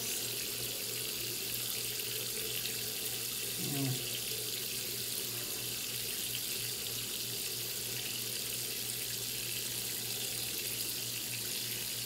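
Water running steadily from a faucet into a sink.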